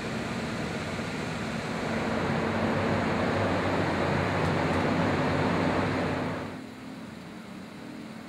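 Water-damage drying equipment running: a steady whir with a low hum, growing louder about two seconds in and dropping off sharply about six and a half seconds in.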